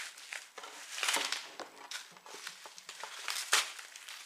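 Packaging on a new skateboard deck crinkling and rustling as it is handled and pulled off in irregular bursts, the loudest about a second in and again near the end.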